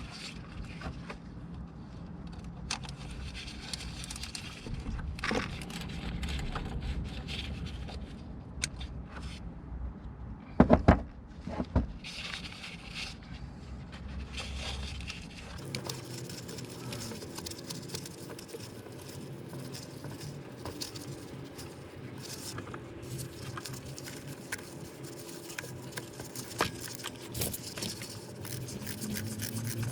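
Hand tools working on bolts under a car: irregular metal clicks, clinks and scrapes, with a few louder knocks about ten and a half seconds in.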